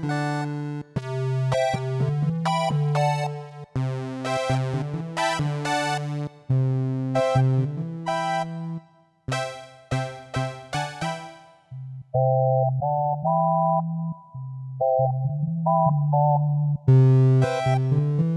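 Casio CTK-800 electronic keyboard playing chords and melody notes over a held bass note. It is a run through the keyboard's preset sounds: about twelve seconds in it changes to a mellower voice with a simple tune over the low note, and near the end it goes back to a bright, full sound.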